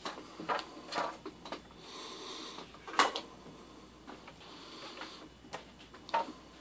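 Quiet handling noise in a small room: scattered light clicks and knocks, with a sharper click about three seconds in and a faint breathy rasp just before it.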